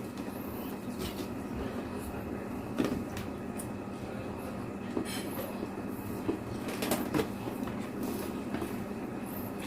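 Eating sounds: a few short clicks and smacks of chewing or utensils, about 3, 5 and 7 seconds in, over a steady low hum.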